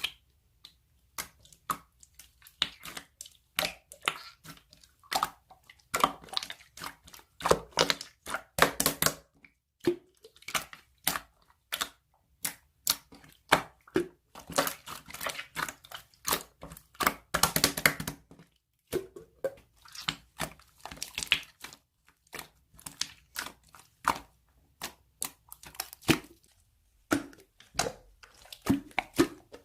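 Slime being squished and pressed by hand, giving a run of irregular sticky crackles and pops.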